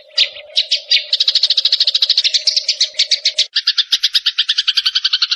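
Songbird chattering song on a bird-song training recording: a fast, unbroken run of sharp high notes, about a dozen a second, with a steady low hum beneath the first part. About halfway through it changes to an even quicker, rattling chatter.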